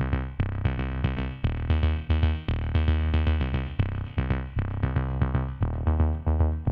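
Background electronic music: synthesizer notes over a steady drum-machine beat with heavy bass.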